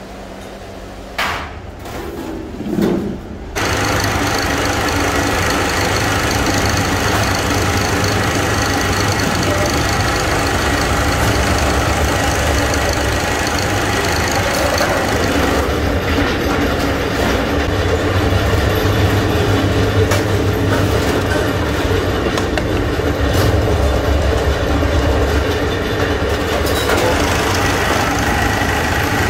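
Sheet-metal press machinery starting up and then running steadily with a low hum and dense mechanical noise, after a few short knocks in the first few seconds.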